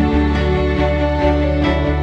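Background music: a slow instrumental piece with sustained notes over a steady low beat.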